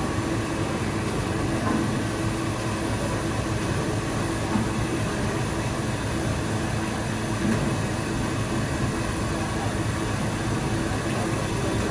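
Factory machinery running steadily: an even mechanical noise with a faint constant tone under it.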